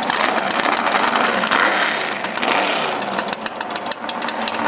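Drag-race car's engine revving hard in two surges at the end of a burnout, the revs falling away about two and a half seconds in, then running at a low, pulsing idle.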